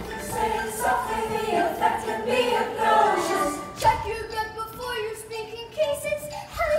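A group of children singing together, with a short knock about four seconds in.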